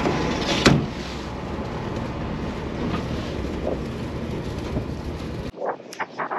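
Stiff wind buffeting the microphone on a boat's open deck, a steady rough rumble with one sharp knock under a second in. Near the end the sound cuts off abruptly and a run of short clicks follows.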